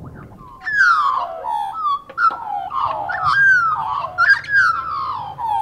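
A group of birds calling together: overlapping warbling calls of gliding, mostly falling notes that start about half a second in and carry on throughout.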